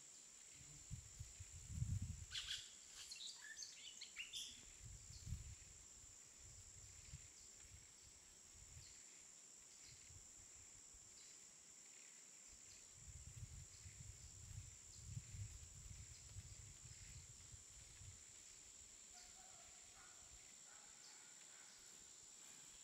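Faint jungle ambience: a steady high insect drone, with a flurry of bird calls about two to four seconds in and a few soft whistled calls near the end, over soft low rumbles that come and go.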